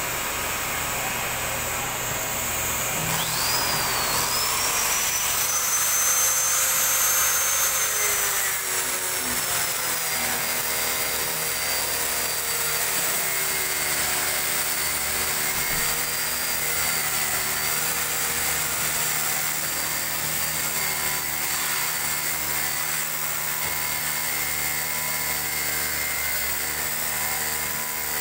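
Angle grinder spinning up to a high whine about three seconds in, then grinding the edge of a 5 mm acrylic sheet, its whine settling slightly lower and holding steady.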